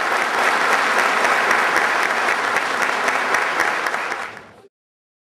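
A group of people applauding, many hands clapping together. The applause fades quickly and stops dead about four and a half seconds in.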